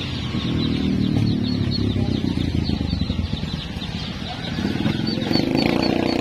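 A motorcycle engine running, swelling twice, with caged chickens and chicks peeping and clucking faintly above it.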